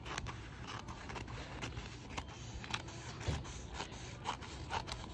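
Scissors cutting through contact paper and its paper backing: a steady run of short, crisp snips, about two a second, as the blades work along a straight line.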